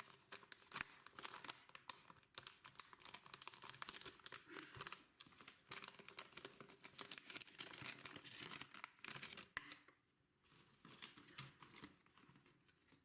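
Packaging being crinkled and torn open by hand, a faint, dense crackle that dies down about ten seconds in.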